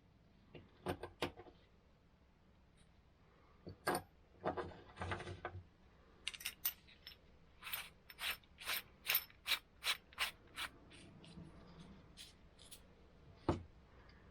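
Small mechanical clicks and rubbing from something being handled, then a quick run of about eight sharp clicks, a little over two a second, and a last single click near the end.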